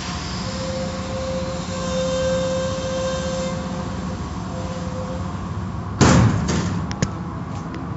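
Automatic car wash heard from inside a car: its machinery and water spray run steadily, with a steady whine during the first few seconds. About six seconds in there is a sudden loud swish, followed by a few sharp clicks.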